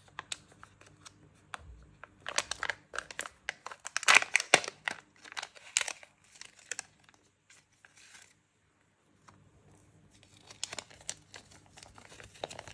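Foil seal and plastic packaging of a Kinder Joy toy capsule crinkling and tearing as the foil is peeled off and the contents taken out, loudest about four seconds in. After a short pause the crinkling resumes near the end as a folded paper leaflet is opened.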